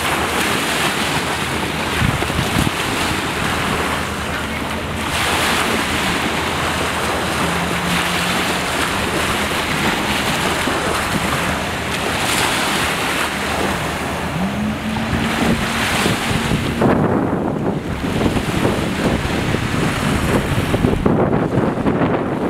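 Small waves washing onto the beach, with wind buffeting the microphone. A faint engine drone from a jet ski out on the water comes and goes, rising in pitch about two-thirds of the way through.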